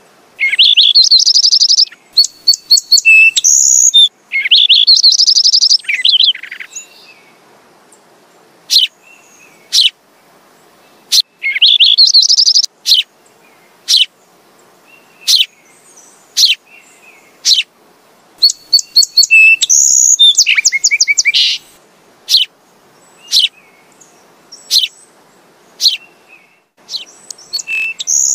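Sparrow chirping: several quick rattling runs of high chirps, with single sharp chirps about a second apart in the gaps between them.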